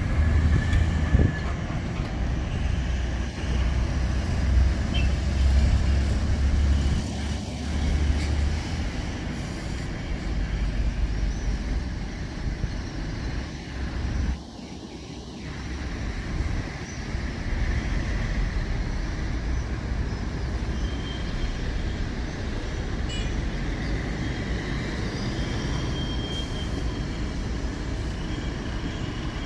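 Steady road traffic noise, a continuous low rumble with a brief lull about halfway through.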